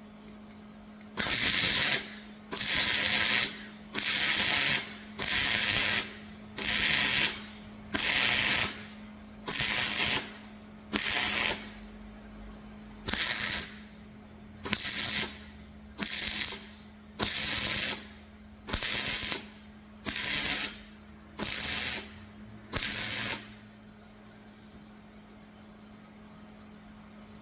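MIG welder laying a row of short stitch welds: about sixteen bursts of roughly a second each with short pauses between, stopping a little after twenty seconds, over a steady low hum.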